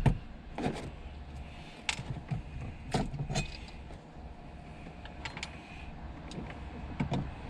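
Scattered light clicks and knocks of hands and tools working loose the fuel pump assembly and its lines in the tank opening, over a faint steady hum.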